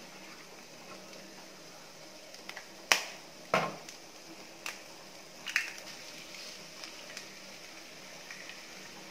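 Eggs being cracked open for frying: a few sharp taps of shell, the loudest two about three seconds in and half a second apart, over a faint steady sizzle from the onions in the pan.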